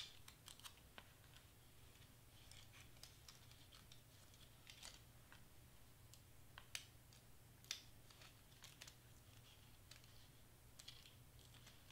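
Faint, scattered clicks and short rustles of paper and tape being handled while a cardstock piece is taped from behind, over a low steady hum.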